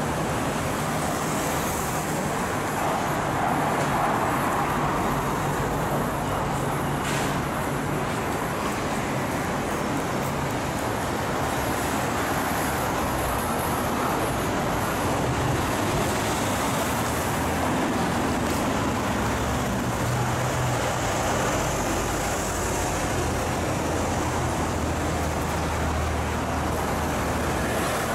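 Steady city-street traffic noise: the hum of cars and buses going by on the road, with a deeper engine drone swelling near the end.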